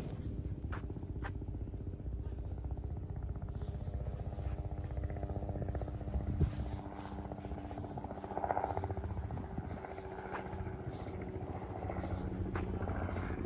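A steady engine drone: a low rumble with several held tones that barely change in pitch.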